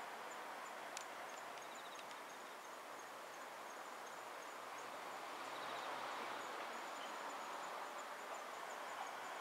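Faint outdoor ambience: a steady soft haze of background noise with a thin, high insect chirp repeating a few times a second.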